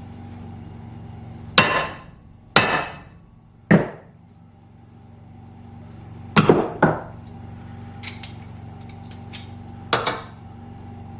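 Sledgehammer striking a hammer-type lug crimper, crimping a battery lug onto welding cable: about six sharp metallic blows with short ringing, unevenly spaced, two of them in quick succession past the middle.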